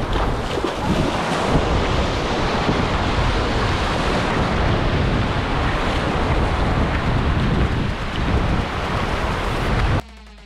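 Ocean surf washing onto the beach, with wind buffeting the microphone in an uneven low rumble. The sound cuts off suddenly near the end.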